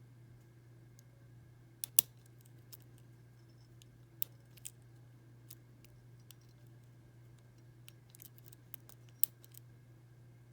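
Lock pick and tension wrench working the pin stack of a six-pin First Watch padlock: scattered small metallic clicks and taps, the loudest about two seconds in and a cluster near the end. The lock is held in a false set while the spool pins are hunted for.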